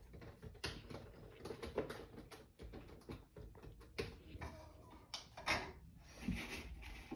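Faint, irregular tapping and clicking of fingers on the keys of a small laptop.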